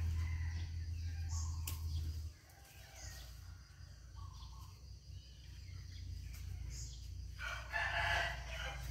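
Short bird chirps every second or so, then a loud bird call of about a second and a half near the end, with several pitches stacked and a crowing quality. A low rumble underneath cuts off suddenly about two seconds in.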